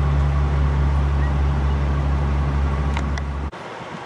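Steady low engine hum, unchanging in pitch, that cuts off abruptly about three and a half seconds in, leaving a fainter wind-like noise.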